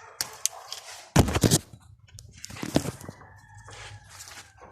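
Irregular knocks and clinks of metal tools and parts being handled during repair work on a truck. The loudest knocks come just after a second in, with a few more shortly before the end.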